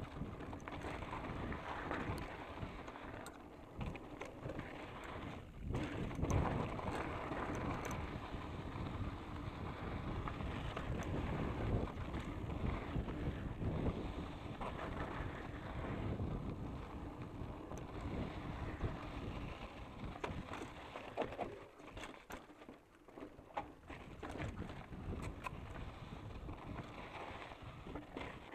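Specialized Enduro Comp 650b mountain bike riding down a rocky gravel trail: tyres crunching over gravel and rock, with short rattles and knocks from the bike over bumps. Wind rushes over the microphone throughout.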